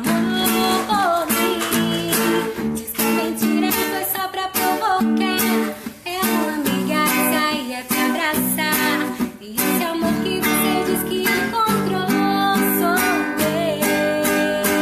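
Acoustic guitar strummed in a steady rhythm, with a wavering melody line over the chords.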